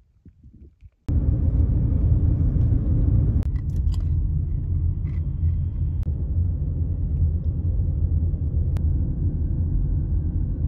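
Steady low rumble of a car driving, heard from inside the cabin, starting suddenly about a second in after a faint, quiet opening, with a few faint clicks over it.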